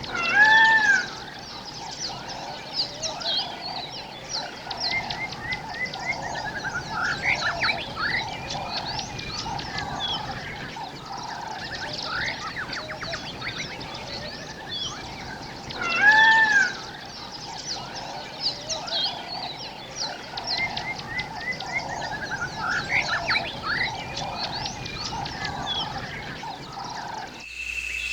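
Forest ambience of many birds chirping and trilling over a steady pulsing animal chorus, with a louder arched call about half a second in and again about sixteen seconds in. Just before the end the sound cuts to a steady high-pitched whine.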